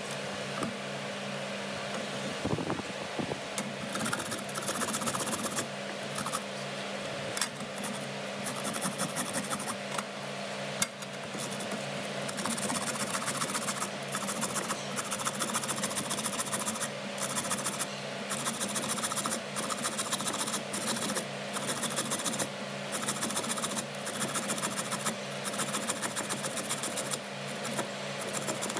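Carrot being grated on a round stainless steel grater plate: repeated rasping strokes that begin a few seconds in and grow steadier and louder after about twelve seconds.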